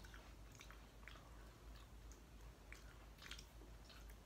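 Faint chewing of a fried lumpia (Filipino spring roll): a scatter of small mouth clicks and soft crunches.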